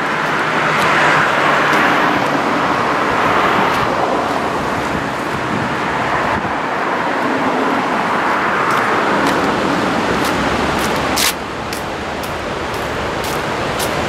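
Seaside outdoor ambience: a steady rushing noise that swells and eases every few seconds, with a few faint clicks and a sudden slight drop in loudness about eleven seconds in.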